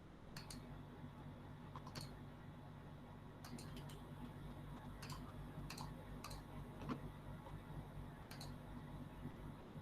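Faint, irregular clicking at a computer, about ten clicks in all, over a low steady hum.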